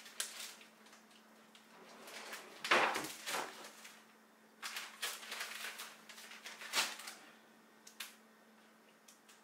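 Scattered kitchen handling noises, with rustling, light knocks and a short click about eight seconds in, over the steady hum of a refrigerator.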